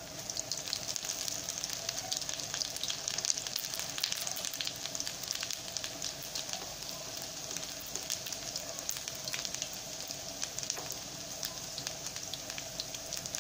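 Huauzontle patties frying in hot vegetable oil in a nonstick skillet: a steady crackling sizzle full of fine pops. It grows louder just after the start as a patty is turned over into the oil with a slotted spatula.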